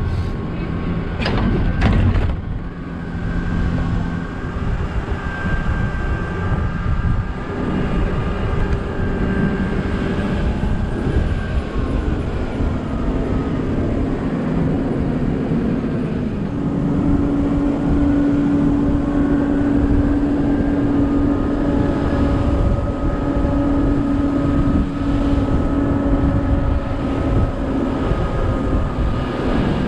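Open-top double-decker bus running, heard from its open top deck: a steady engine and drivetrain whine whose tones hold and shift in pitch, over a constant rumble of wind on the microphone. A few sharp clicks sound about a second in.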